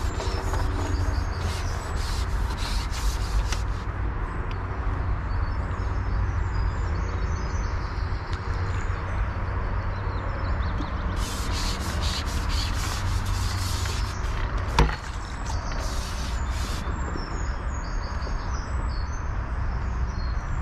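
Wind buffeting the microphone, a steady low rumble with patches of crackling, while small birds chirp in the background. A single sharp knock comes about fifteen seconds in.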